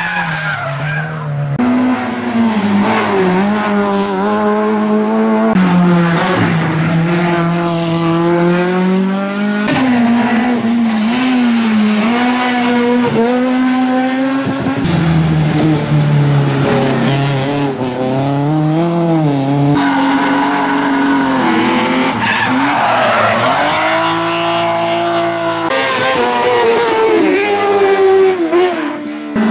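Race car engines revving hard through hairpin bends, one car after another: the pitch climbs through each gear and drops on lifting off and shifting.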